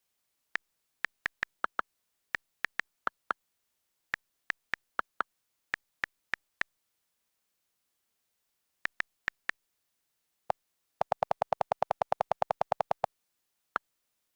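Sharp clicks on dead silence: single clicks and small clusters at irregular gaps, then, after a pause, a rapid run of about ten clicks a second for two seconds and one last click near the end.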